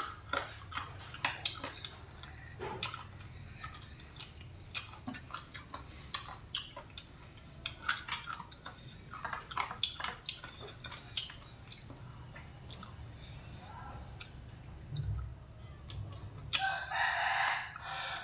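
Close-up eating sounds: chewing, lip smacks and small clicks, off and on, as food is picked apart by hand and taken from a steel tray. Near the end a rooster crows once for about a second and a half.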